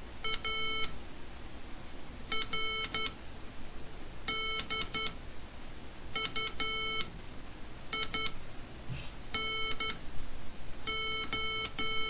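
Hand-sent Morse code tone beeps spelling ARDUINO: seven characters (A, R, D, U, I, N, O), each a short group of dits and dahs, with a pause of a second or more between letters. The tone is a steady buzzy beep. The very short two-beep group about eight seconds in is the letter I, and the last group, three long dahs, is the letter O.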